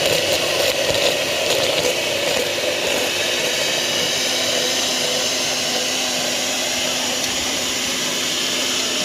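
Electric blender motor running steadily while it blends roasted peppers and vegetables into a thick paste. A lower tone comes into its hum about halfway through.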